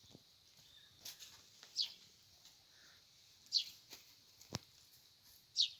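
A bird calling: short, high notes that slide downward, three times about two seconds apart, with a single sharp click between the second and third.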